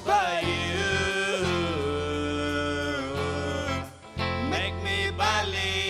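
A live band playing an instrumental passage of a song on keyboard, bass guitar, electric guitar and drums. A lead melody line slides and bends over the steady accompaniment, and the music drops briefly about four seconds in.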